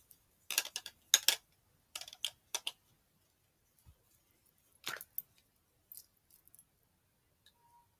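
Short clicks and rustles of small objects being handled and set down, coming in several brief clusters.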